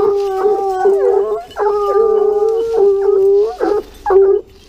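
A pack of Gascon Saintongeois hounds baying in long, drawn-out howls, several voices overlapping, giving tongue on wild boar. The notes break into shorter cries near the end.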